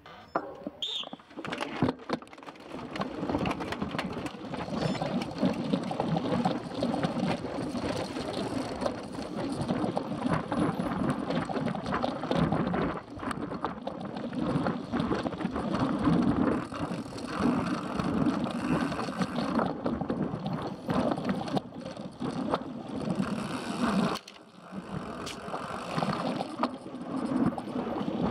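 A short high tone about a second in, the race start signal, then a mountain bike ridden hard from a bike-mounted camera: continuous rattle and clatter of chain, drivetrain and tyres over rough grass, briefly quieter about 24 seconds in.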